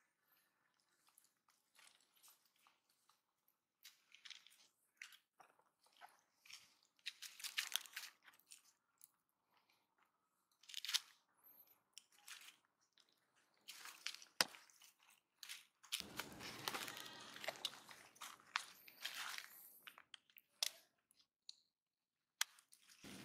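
Faint, scattered crunches and rustles as pigtail macaques handle food and move about on dry leaf litter, with a longer stretch of rustling about two-thirds of the way through.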